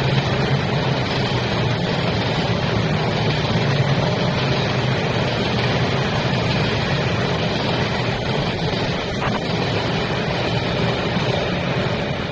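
Taiwan Railway passenger train running past on an elevated track: a loud, steady rumble of wheels on rail with a low hum underneath.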